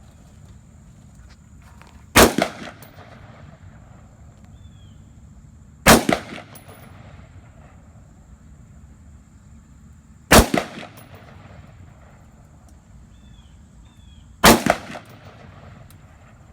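Four single rifle shots from a Rock River Arms AR-15 A2 in 5.56, spaced about four seconds apart, each followed by a short echo.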